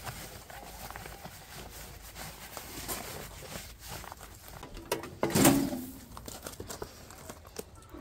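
Hands handling a canvas cover on a fan heater: fabric rustling and brushing with small clicks, and one louder bump with rustle about five seconds in.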